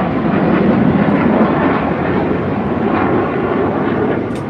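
Loud, steady jet noise from the Red Arrows' BAE Hawk jets flying in their display.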